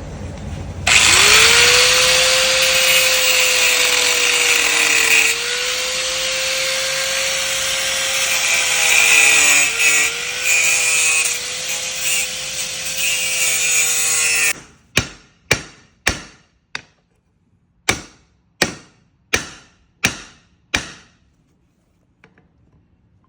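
A high-speed power tool spins up and runs for about fourteen seconds, its pitch dipping briefly a few times as it bites into the work, then cuts off. After it, a hammer strikes about ten times in quick succession.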